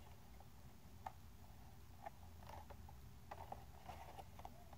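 Faint scattered taps and small clicks of a cardboard Funko Pop box with a plastic window being handled and turned over in the hands.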